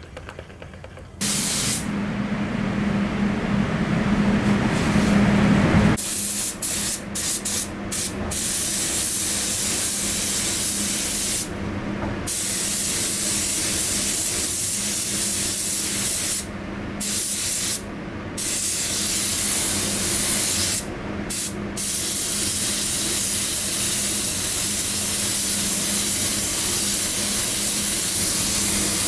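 Compressed air hissing from a hand-held pneumatic air gun in an auto body shop, held on for long stretches and broken off briefly several times as the trigger is released. A low steady hum runs underneath, loudest in the first few seconds.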